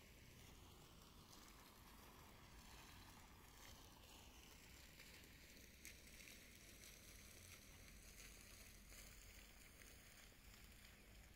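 Near silence: a faint steady outdoor hiss, with one faint click about six seconds in.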